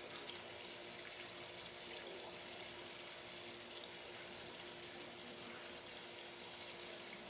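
Steady outdoor background noise, an even hiss-like wash, with a faint constant hum underneath.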